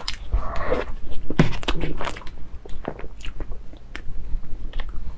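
A person eating soft cream cake: chewing and mouth noises, with many irregular sharp clicks.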